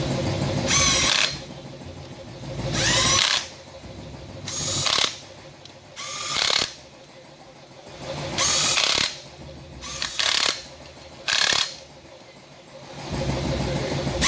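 Handheld power gun (impact gun or electric ratchet) running bolts in, in about seven short bursts, each with a whine that sweeps in pitch as the tool spins. A steady low hum underneath stops about three seconds in.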